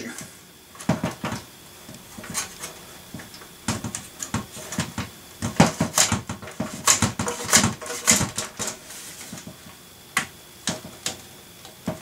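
Irregular clicks, knocks and scrapes of plastic and metal as a tight-fitting part is pushed and wiggled into the drive area of a Dell Inspiron 3650 desktop's steel case.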